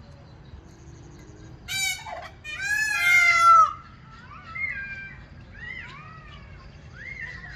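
Birds calling: two loud, drawn-out, wailing calls a second apart, the second lasting about a second, followed by several softer, shorter calls.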